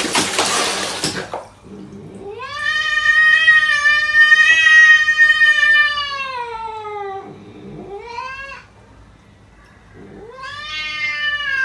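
A cat yowling in long, drawn-out calls: one call of about five seconds that rises and then slowly falls in pitch, a short call after it, and another long call starting near the end. A burst of water splashing in a plastic basin comes at the very start.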